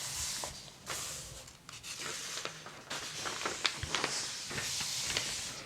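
Thin paper catalog pages rustling as they are handled and turned, with scattered light ticks and scratches of fingers on the paper.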